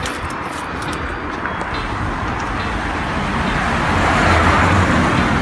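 Street traffic: a motor vehicle coming past, its engine hum and tyre noise growing louder and peaking about four to five seconds in.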